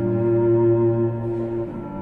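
Slow background music of long, held bowed cello notes, moving to a new note near the end.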